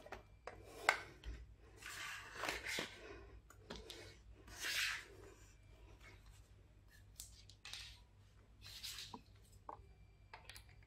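Light handling noise: scattered short rustles and clicks as a laptop and its charging cables are moved about.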